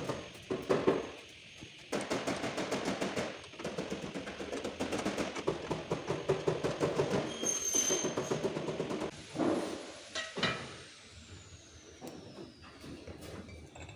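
Rapid hammer blows on a car's sheet-metal body panel, the tapping of panel beating. The strikes stop about ten seconds in, leaving a faint falling whine.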